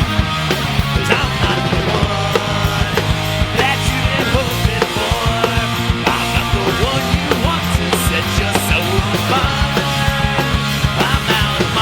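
Loud, dense punk-style rock band recording with fast, steady drum hits and bending pitched lines over a full band.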